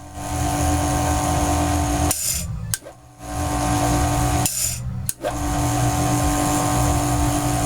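Electric lawnmower motor, freshly fitted with new bearings, running with a steady whine; it is switched off and comes to a quick stop twice, about two seconds in and again after four and a half seconds, each time starting up again within a second, as its brake is tested.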